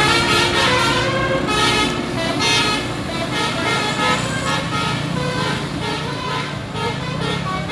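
Basuri telolet horn on a bus playing a tune: a multi-tone musical horn sounding a run of short stepped notes.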